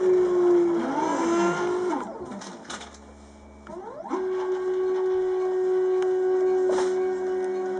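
Stepper motors of a homemade CNC router whining as the gantry moves on a dry run without cutting. The pitch glides up and down as the axes speed up and slow down, and falls away about two seconds in. It then rises quickly and holds a steady tone, with a few faint clicks.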